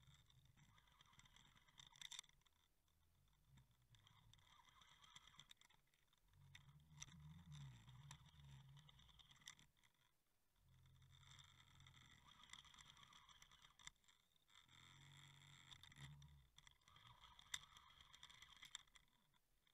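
Near silence: a faint low hum and faint hiss that come and go, with a few faint clicks.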